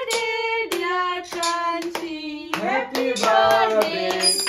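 A small group of voices singing together, mostly women's and a child's, with hands clapping along in a steady beat.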